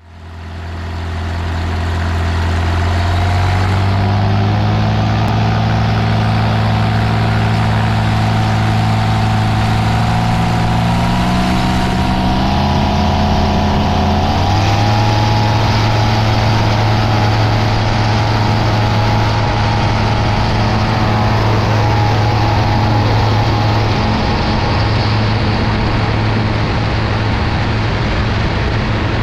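BRM Citius ultralight aircraft's engine and propeller running at full power for takeoff, with wind rushing over the wing-mounted microphone. It fades in over the first couple of seconds, and the engine note steps up slightly about halfway through as the plane gathers speed and lifts off.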